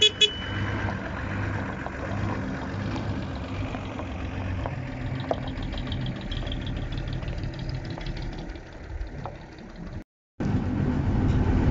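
A 1962 Mercedes-Benz 312 truck's diesel engine running steadily as the truck drives slowly past, with a couple of short horn toots right at the start. After a brief cut about ten seconds in, the same engine is heard louder from inside the cab.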